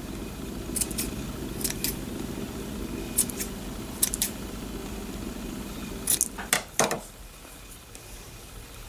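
Scissors cutting ribbon: several short, crisp snips, some in quick pairs, as the ends of a ribbon bow are trimmed. A low steady hum runs underneath and stops about seven seconds in.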